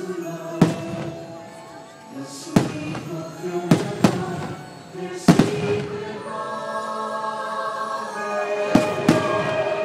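Aerial fireworks shells bursting in about seven sharp bangs, two close together near the end, over the fireworks show's music.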